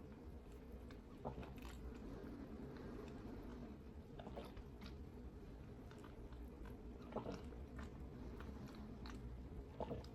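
Faint, irregular gulping and swallowing sounds from a person chugging root beer from a can, with small wet clicks every second or two.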